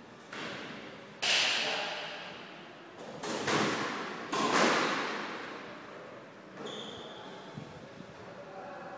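A squash rally: the ball is smacked by racquets and hits the court walls in a series of sharp cracks, each ringing out in the hard-walled court, the loudest a little over a second in and around three and a half to five seconds in. A brief high shoe squeak on the wooden floor comes about two-thirds through.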